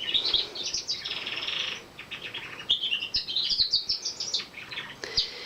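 Male pet canary singing: quick high twittering phrases with a rapid trill about a second in, a short break, then more runs of notes. The speaker puts his singing down to spring, when he sings a lot.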